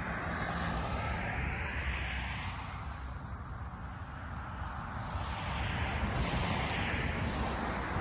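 Road traffic: cars passing on a multi-lane road, a steady tyre-and-engine hiss that swells and fades as each goes by, a little louder from about five seconds in.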